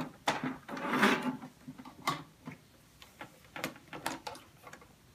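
Plastic clicks and knocks as the doors of a Barbie Style Ultimate Closet toy wardrobe are swung shut and pressed closed, with a short scuffling rustle about a second in.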